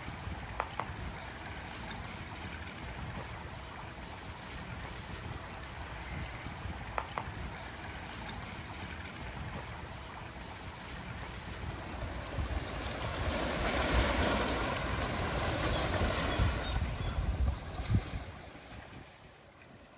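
Shoreline ambience: wind and small waves washing against a rocky, mangrove-lined shore. It swells louder in the second half, then fades out at the end.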